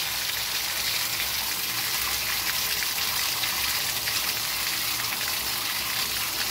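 Water gushing steadily out of a brass pressure relief valve on a tankless water heater's isolation valve kit, its lever held open by hand to test the valve.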